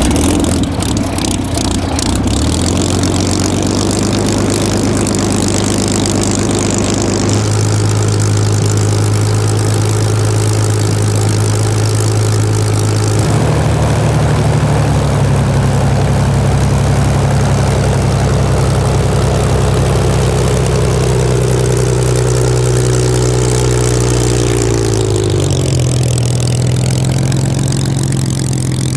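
Supermarine Spitfire's Rolls-Royce Merlin V12 engine running loud and steady, its pitch stepping abruptly up or down several times.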